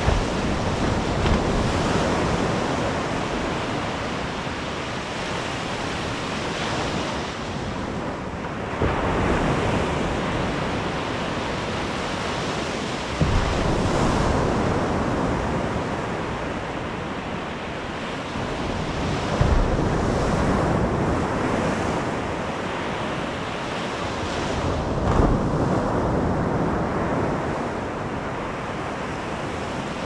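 Sea waves breaking and washing up on a beach, swelling every few seconds, with wind buffeting the microphone.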